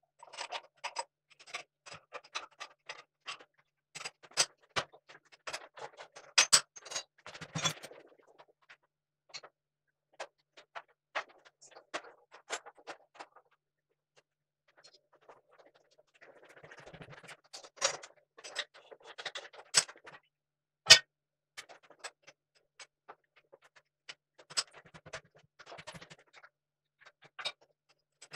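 Scattered sharp metallic clicks and clinks from tools and clamping hardware being handled during setup of a workpiece on a milling machine table, in irregular clusters. There is a quiet stretch a little before halfway and a brief rustle just after it.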